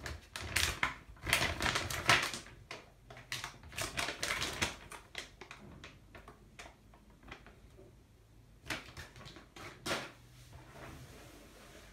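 A rapid clatter of sharp clicks and taps, like typing, that thins out after about five seconds into scattered clicks, with two louder clicks near the end.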